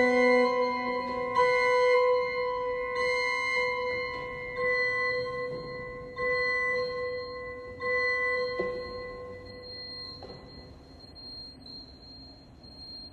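Förster & Nicolaus pipe organ repeating a high figure over and over while stops are withdrawn one by one: the sound thins and grows steadily quieter until little more than a faint high register is left. This is the register diminuendo toward a lone 2' stop.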